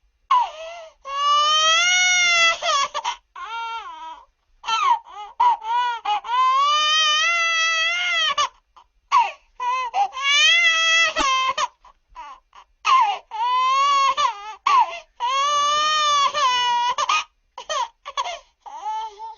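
Pitched-up cartoon baby crying sound effect: long, high wailing cries that rise and fall, broken by short sobbing catches and brief pauses, over and over.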